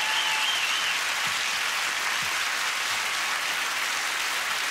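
Studio audience applauding steadily, with a wavering whistle from the crowd that stops about a second in.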